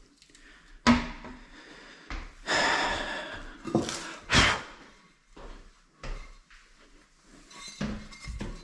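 A plastic toilet seat creaking and knocking as it is sat on and shifted. There is a sharp knock about a second in, a longer creak, then two louder knocks, with smaller knocks near the end.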